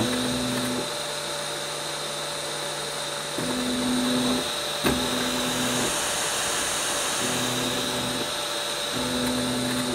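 Stepper motors of a Hypercube Evolution 3D printer jogging the belt-driven X gantry back and forth. A steady motor whine steps between a higher and a lower note every second or so as the moves change, with a short click about five seconds in.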